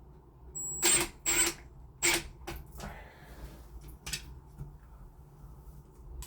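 Screws being driven into the smart lock's fittings: a handful of short metallic clicks and clinks, bunched in the first two and a half seconds, with one more about four seconds in.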